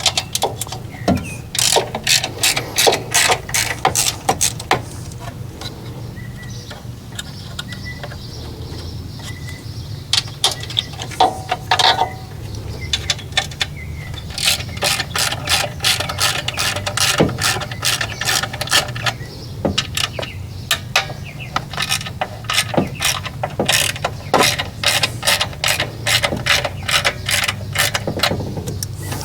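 Ratchet wrench clicking in repeated quick runs of sharp clicks with short pauses between them, as fasteners are worked during disassembly of the generator's mixer assembly. A steady low hum runs underneath.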